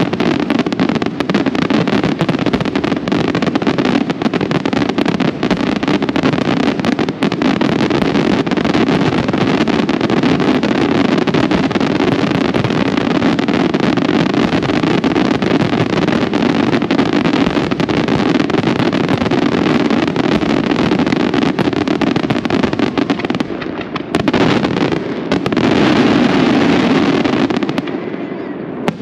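Aerial fireworks barrage: a dense, continuous rattle of shell bursts and crackling stars. A brief lull comes about five seconds before the end, then a last loud stretch that tails off.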